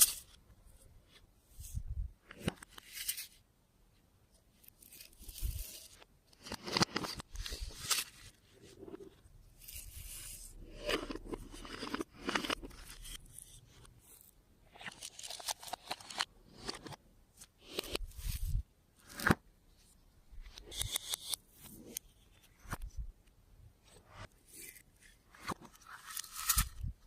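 Clear slime being mixed and worked by hand: irregular bursts of sticky crackling and tearing, with short pauses between and a few sharp clicks.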